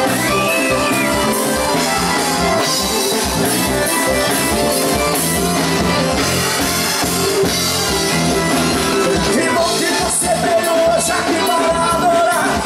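Live gospel band music with a steady drum beat and singing, played loud through a concert sound system.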